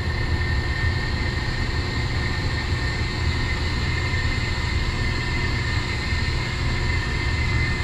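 Steady low mechanical drone with a thin, constant high tone above it: the running machinery of a commercial boiler room, with boilers and pumps in operation.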